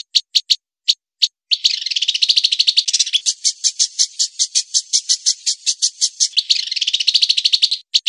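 Masteran recording mixing small songbird and walang kecek katydid calls: a fast, even run of sharp high chirps, about seven a second. Twice it thickens into a quicker buzzing trill, about two seconds in and again near the end.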